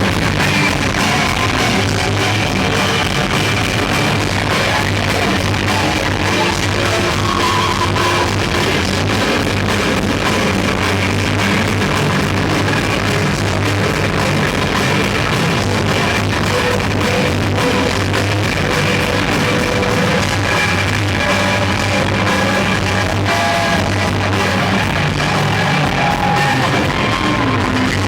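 Rock band playing live: loud electric guitar noise over bass and drums, a dense, unbroken wall of sound.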